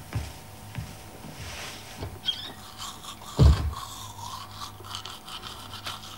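Scraping and rubbing with scattered light knocks and clicks, and one louder dull thump about three and a half seconds in.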